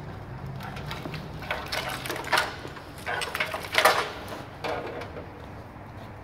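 Rattling and rustling of an engine wiring loom and its plastic connectors being worked off the engine, in several short irregular bursts.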